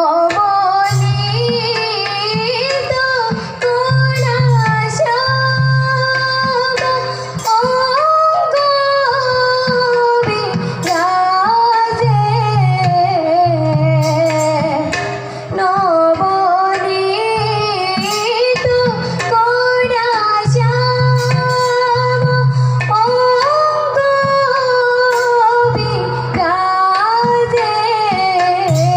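A young female voice singing a Borgeet, an Assamese devotional song, its melody gliding and bending between held notes. A hand-played two-headed barrel drum accompanies it in recurring low strokes.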